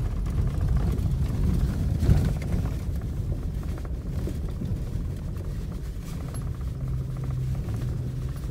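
Cab noise of a Toyota Tacoma pickup driving a rough dirt trail: a steady low rumble of engine and tyres on gravel, with a jolt about two seconds in.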